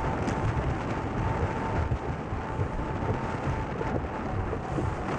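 Wind buffeting the microphone of an action camera mounted on a windsurf rig under way, with a steady rush of water and spray from the board cutting through chop. A faint steady whistle runs under the wind noise.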